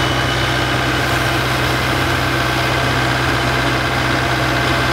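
John Deere 4066R compact tractor's three-cylinder diesel engine idling steadily.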